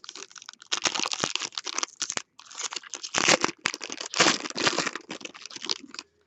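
Foil wrapper of a football trading card pack being torn open and peeled back, crinkling in several bursts with short pauses between them.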